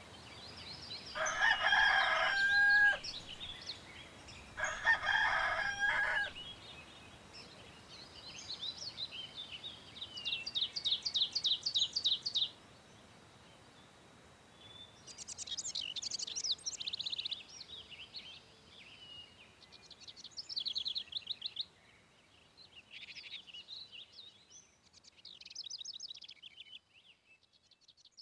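A rooster crowing twice, then small songbirds singing in rapid, high trills.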